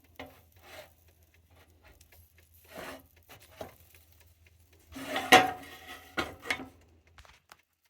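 Kitchen handling noises: light scrapes and knocks of utensils and cookware, then a denser clatter with one sharp knock about five seconds in.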